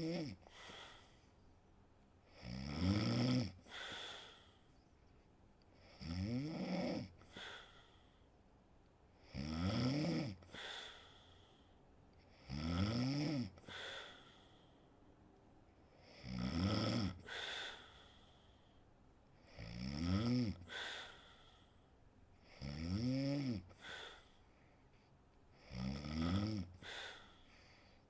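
A sleeping woman snoring in a steady rhythm, about once every three seconds. Each snore is a drawn-out, pitched rattle that rises and falls, followed by a shorter second puff.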